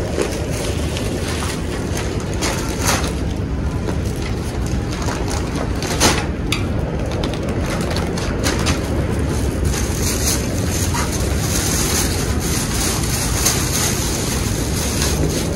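Wind buffeting the microphone in a steady low rumble, with plastic shopping bags crinkling and brief knocks as groceries are packed into a bicycle's front wire basket; the sharpest knock comes about six seconds in.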